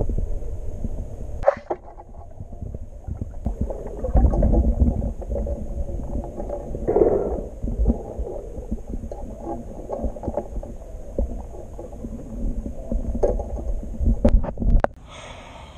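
Muffled underwater sound of a swimming pool picked up by a submerged camera: low rumbling water movement with scattered knocks, and a few sharp clicks near the end.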